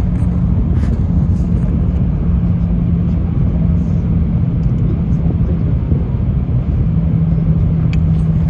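Cabin noise inside the L0 series superconducting maglev train running at high speed: a loud, steady rumble with a steady low hum over it.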